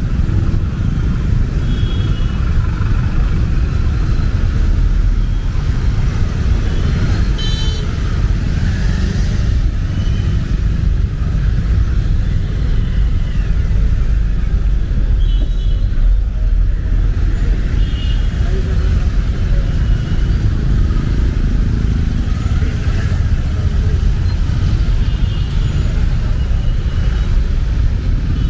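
Street traffic in heavy rain: a steady low rumble of vehicle engines with rain hiss over it. A few brief higher-pitched sounds come through now and then, the sharpest about seven seconds in.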